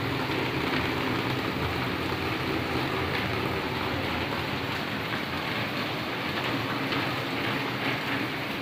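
Heavy rain pouring steadily: a dense, even hiss of downpour.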